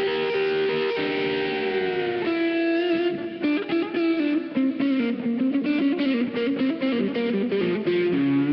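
Instrumental music led by an electric guitar with effects: a held note, then a quick run of bending notes.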